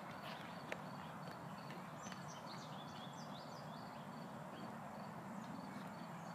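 Birds chirping over a steady outdoor background hum, with a cluster of quick high chirps about two seconds in and a faint high note repeating over and over.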